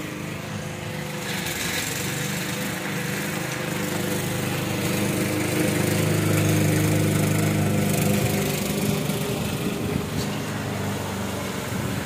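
Walk-behind lawn mower's small engine running steadily under load while cutting grass, growing louder for a few seconds in the middle and then easing off.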